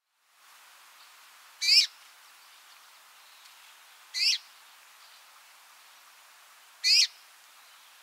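Red-mantled rosefinch calling: three short calls about two and a half seconds apart, each a quick run of falling notes, over a faint steady hiss.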